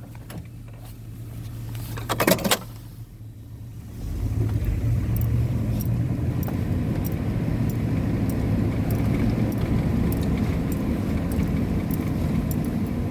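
A car's engine idling, with a short clatter of sharp knocks about two seconds in. From about four seconds the engine and tyre rumble grow louder and hold steady as the car drives along the road.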